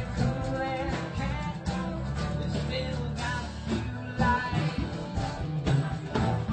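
A live country-rock band playing, with electric guitar over bass and drums.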